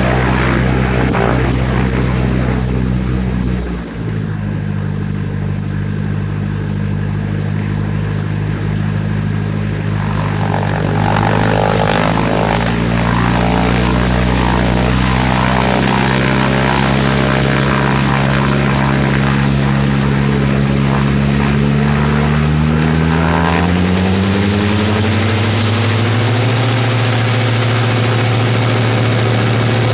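Diesel engine and propeller of a Cessna 172 running under power during the takeoff, with wind rushing over the strut-mounted microphone. The engine note shifts with a brief dip about four seconds in, the wind noise builds from about ten seconds, and the engine note rises between about 23 and 27 seconds.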